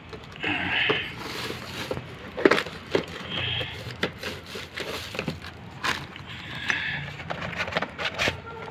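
Cardboard box of a replacement air filter being handled and opened by hand: scattered light knocks, taps and papery scraping and rustling.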